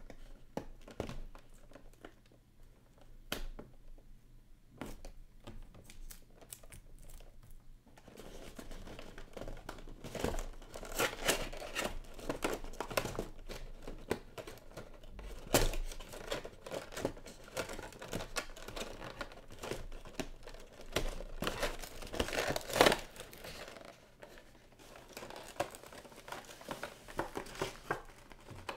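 Action-figure box packaging being worked open by hand: crinkling and tearing with scattered sharp clicks. It is sparse for the first several seconds, then becomes a busy run of crinkles with a few louder snaps.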